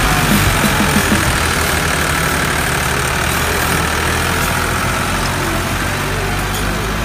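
Ford farm tractor's diesel engine running steadily under heavy load while pulling a loaded sugarcane trolley, with black smoke from the exhaust.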